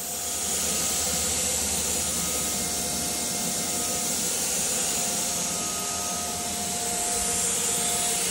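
A steady rushing hiss with two faint, steady high tones, like a machine running.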